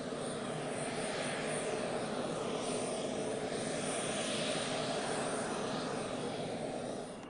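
Embraer KC-390's twin turbofan engines as the jet flies past, a steady rushing roar with a sweeping, phasing quality that swells around the middle. It drops off sharply just before the end.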